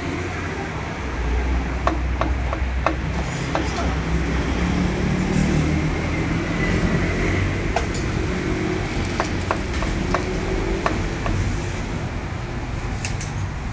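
Cleaver striking poached chicken and the thick round wooden chopping block: sharp, irregular knocks, some in quick runs of three or four, over a steady low rumble in the background.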